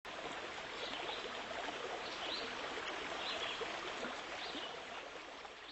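Steady running-water noise with a few short, high chirps over it, fading out near the end.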